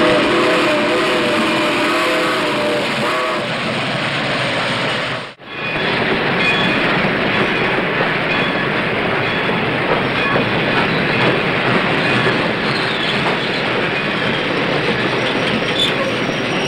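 Steam locomotive whistle sounding a chord of several steady tones for about three seconds, followed, after a brief cut-out, by the steady rumble and clatter of a moving steam freight train.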